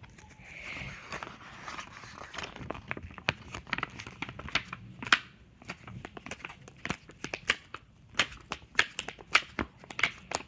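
Paper pages of a graphic novel rustling and crinkling as a hand handles and turns them, with many irregular sharp crackles and taps.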